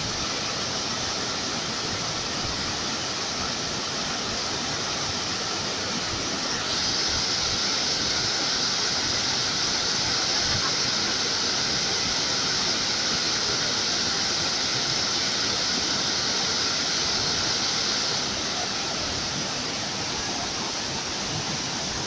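Waterfalls and a fast river rushing steadily over rocks, a constant white-noise roar that gets louder for a stretch through the middle.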